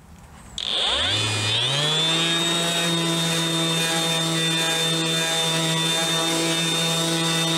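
Ryobi RROS18C 18 V brushless 125 mm random orbital sander switched on about half a second in. Its motor winds up in pitch over about a second, then runs at a steady speed while sanding dry softwood.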